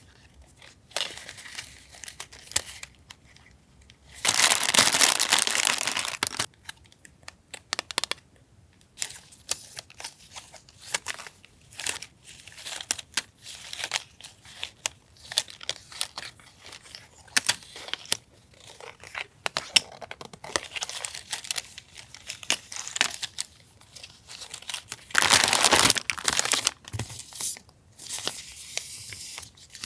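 Paper and plastic wrapping being handled and unwrapped by hand: crinkling and rustling with small clicks and taps, and two louder, longer stretches of tearing or crinkling, one about four seconds in and one near the end.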